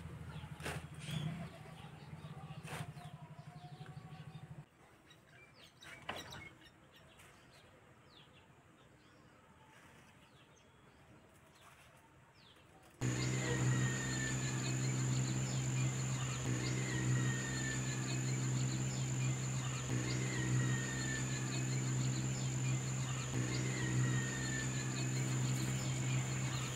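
Garden ambience: faint clicks and rustles of leaves at first. About halfway through, a much louder bed of birdsong starts abruptly, a short falling chirp repeating about every three seconds over a steady high whine and a low hum.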